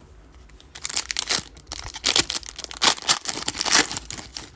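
Crinkling and tearing of a trading-card pack wrapper as it is ripped open and handled, in a dense run of crackles starting about a second in.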